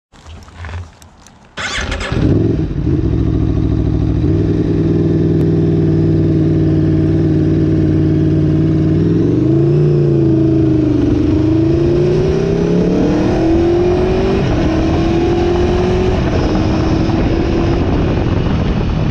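Aprilia Tuono V4 1100 RR's V4 engine fires up about a second and a half in and runs at a steady idle. About nine seconds in it pulls away, and the engine note rises through the gears, dropping briefly at each upshift.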